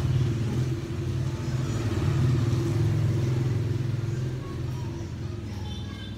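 A vehicle engine running close by with a low steady hum, loudest a couple of seconds in and fading toward the end.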